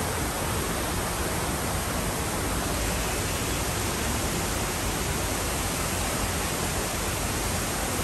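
Ornamental fountain: a row of water jets and a water wall splashing down into the pool, a steady, even rush of water.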